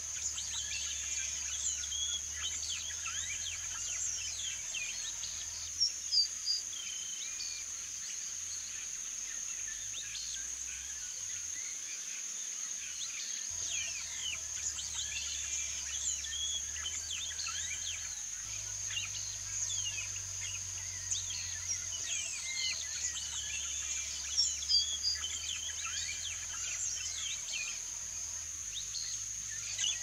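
Many small birds chirping and whistling in short, quick notes throughout, over a steady high-pitched insect drone. A few louder calls stand out about six seconds in and again around twenty-five seconds.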